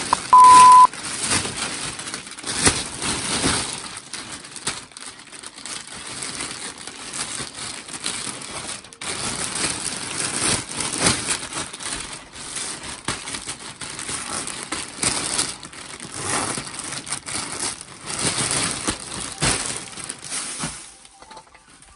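Large clear plastic vacuum storage bag crinkling and rustling irregularly as stuffed toys are pushed and pressed into it. A short, loud, steady beep sounds about half a second in. The crinkling dies down near the end.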